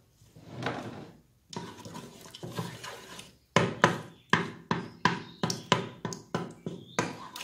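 Wooden spatula stirring and scraping lumps of butter around the inner pot of an electric pressure cooker. At first it is soft scraping, then from about halfway through it becomes quick repeated strokes, about three a second.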